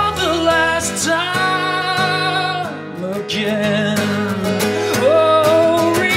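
A male voice sings long, wavering notes over a strummed acoustic guitar: a solo acoustic rock song performed live.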